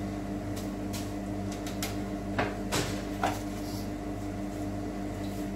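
Kitchen extractor hood fan running with a steady hum, drawing off the smell of frying. A few light clicks and knocks of cooking utensils against the deep-fryer basket come in the first half.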